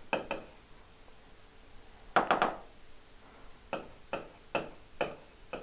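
Stylus tapping and clicking on the glass of an interactive display as words are handwritten: a series of light, irregular taps, with a quick cluster of three about two seconds in and single taps about every half second near the end.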